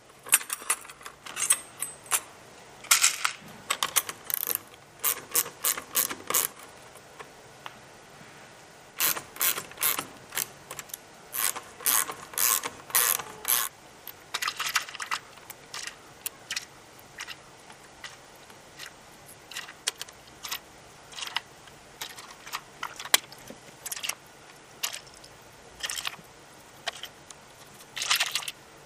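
Ratchet wrench clicking in short runs of strokes with pauses between, as fasteners are worked during assembly of a homebuilt helicopter's main rotor blade.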